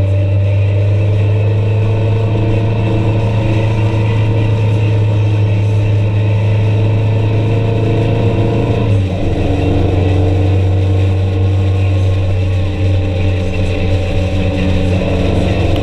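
A road vehicle's engine running steadily while under way. Its low drone steps down slightly in pitch about nine seconds in, then holds steady again.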